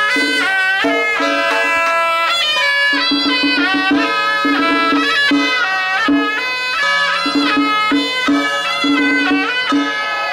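Traditional music led by a reed wind instrument playing a melody of held notes that step up and down, over a lower part of short repeated notes.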